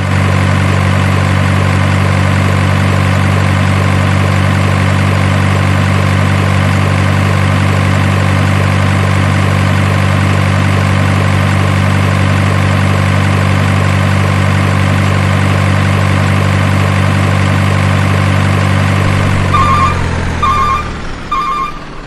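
Truck engine idling sound effect: a loud, perfectly steady low idle that fades out near the end, as a repeating electronic beep starts, about one and a half beeps a second.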